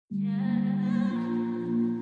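Intro music of sustained, soft chords that shift to a new chord about a second in.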